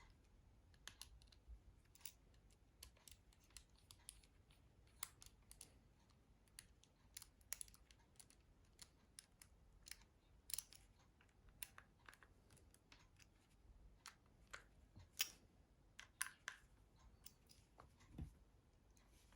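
Faint, irregular small clicks and ticks of a small screwdriver and tiny screws against a mobile phone's plastic housing as screws are fitted during assembly, with a few sharper clicks now and then.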